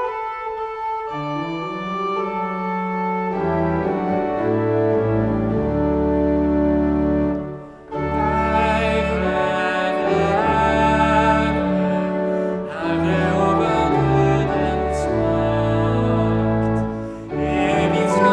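Church pipe organ playing a hymn introduction, with bass notes coming in about a second in. After a brief break about eight seconds in, a woman and a man start singing the hymn in Norwegian over the organ.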